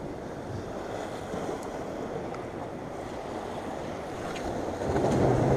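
Sea surf washing and breaking against rocks, with wind buffeting the microphone; a steady rush that swells a little near the end.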